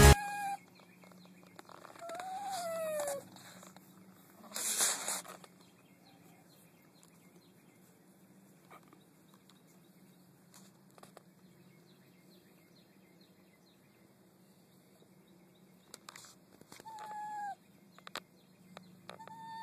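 Small dog coated in road tar whimpering: three short whines that fall in pitch, one about two seconds in and two near the end, the sound of a dog in distress. A brief noisy rustle about five seconds in.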